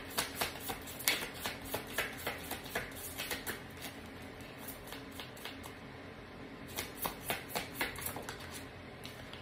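A deck of tarot cards being shuffled in the hands: quick card slaps at about three a second, thinning out, a short pause, then a few more near the end.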